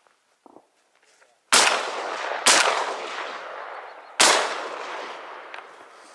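Shotgun fired three times at flying ducks. The first two shots come about a second apart and the third about a second and a half later, each followed by a long rolling echo.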